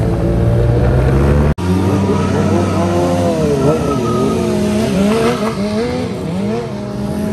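A steady engine drone while riding a Yamaha TMAX 530 cuts off abruptly about a second and a half in. Then sport motorcycle engines rev up and down repeatedly, with tyre squeal from rear-wheel burnouts.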